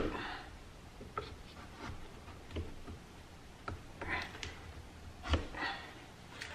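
A sharp click, then faint scattered knocks and short scraping as a heated knife tang is pressed and worked down into a wooden handle block clamped in a vise, burning out the tang hole.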